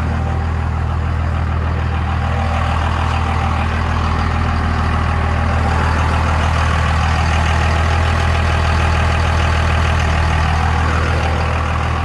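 A 2nd-gen Cummins 5.9 L inline-six turbo diesel idling steadily soon after starting, left running so the remaining air works out of its freshly bled fuel system.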